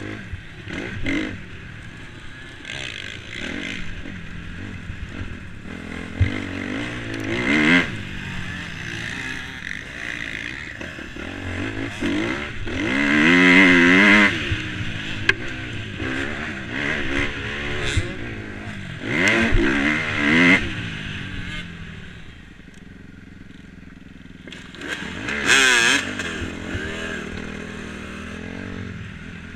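Suzuki RM-Z250 four-stroke single-cylinder motocross engine revving up and down as the throttle is worked around the track. There are about four louder surges of acceleration, heard close up from the rider's helmet.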